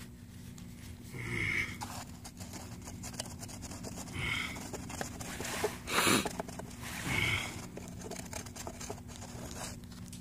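Paper towel rustling and scraping as it is wiped and pushed around inside the crucible of a graphite exothermic-welding (cadweld) mold, first by hand and then with a screwdriver, to clean it out before the weld charge goes in. The loudest scrape comes about six seconds in.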